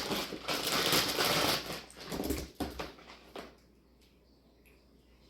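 Packaging rustling as modular power-supply cables are handled and unpacked: about three seconds of dense crinkling, then a few light knocks.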